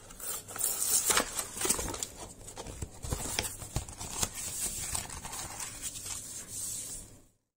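Hands rubbing and handling sheets of card and paper on a work surface: continuous dry rustling and scraping with scattered small clicks, cutting off suddenly near the end.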